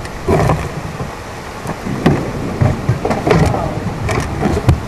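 Thunderstorm: rain and wind with uneven low rumbles and crackles rising and falling.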